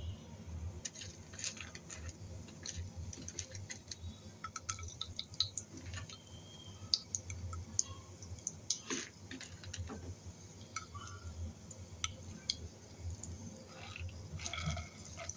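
Whole spices (cinnamon, cardamom, cloves, black peppercorns) frying in hot desi ghee in a small pan: a faint sizzle with irregular sharp pops and crackles. Near the end the crackling thickens as chopped almonds and cashews are tipped in.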